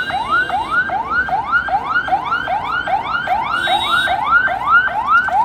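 Police escort siren in fast yelp mode: quick rising sweeps that drop back and repeat evenly, about two to three a second.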